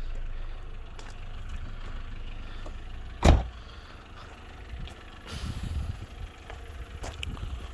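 A single loud thump about three seconds in, the door of a 2004 Renault Clio three-door hatchback being shut, over a low rumble.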